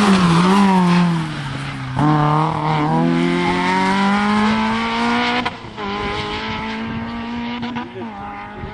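Rally car's engine passing at full effort: the pitch falls as the car brakes for a corner, then climbs hard through a gear about two seconds in, dips sharply at an upshift a few seconds later, and keeps pulling as the car draws away.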